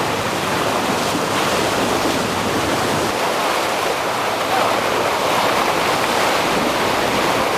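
Steady rushing noise of wind and water aboard a boat under way, even in level throughout.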